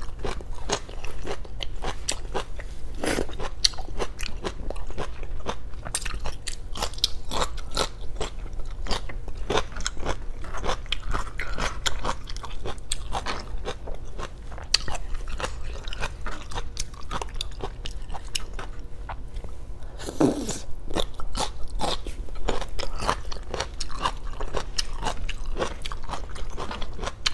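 Close-miked eating sounds: crisp green vegetable stalks crunched and chewed with many quick sharp crunches, the bites and mouth sounds of a mukbang.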